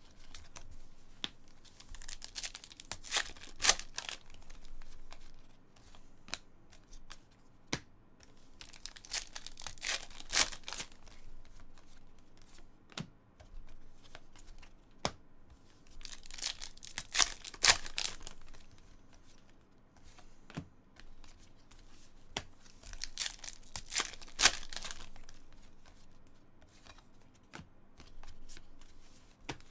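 A stack of Panini Contenders football trading cards being handled and flipped through, the cards sliding and scraping against each other. The rustle comes in four bursts, roughly every seven seconds, with small clicks between them.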